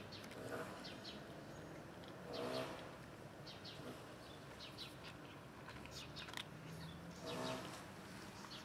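Hungry stray cat eating dry kibble from a plastic tub, with small birds chirping in short bursts through the middle and later part.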